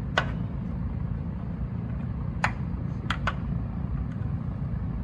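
A few short, light clicks as a small metal wrench works a black plastic push clip loose from the edge of a car fender: one near the start, one about halfway, then a quick pair. A steady low hum runs underneath.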